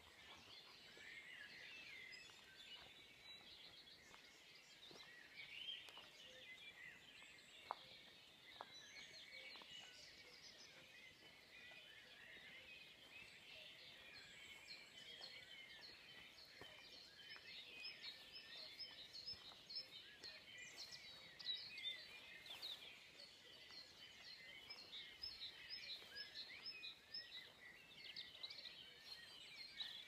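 Faint dawn chorus: many small songbirds singing and calling at once, their chirps and trills overlapping, growing denser and a little louder in the second half.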